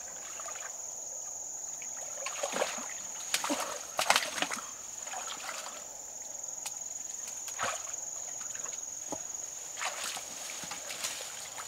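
Irregular sloshing and splashing in shallow water, a few sharp splashes at uneven intervals, the loudest about four seconds in.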